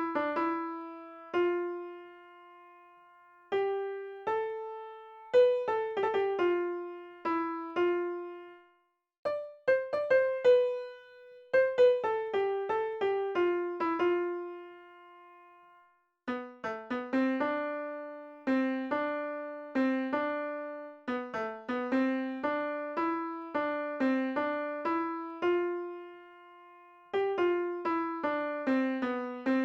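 Background piano music: a simple melody of single struck notes that ring and fade, in short phrases with brief pauses.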